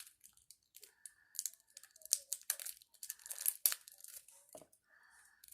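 Packaging of a trading-card structure deck being torn and crinkled open by hand, with irregular crackles and short rips; the wrapping is hard to open.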